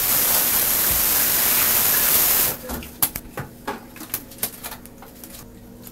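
Bathroom tap running into the sink for about two and a half seconds, then shut off. A string of short, uneven toothbrush strokes follows.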